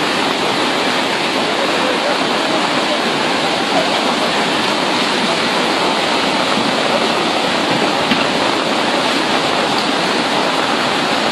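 A flash-flood torrent of muddy water rushing steadily past, a continuous, even noise without a break.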